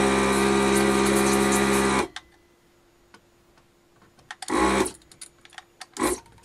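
Vacuum pump of a ZD-985 desoldering station running while the gun's trigger is held: a steady buzz with the hiss of air drawn through the hot nozzle, cutting off sharply about two seconds in. Two short bursts of the pump follow later, with light clicks between them and a faint steady hum.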